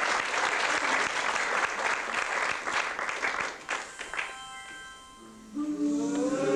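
Audience applauding, dying away after about four seconds, then music starts: a held chord, followed near the end by a louder pitched tune.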